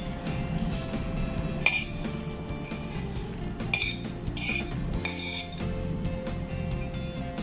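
A spoon scraping and clinking against a bowl in several short strokes as crushed nacho chips are tipped into a salad, over background music.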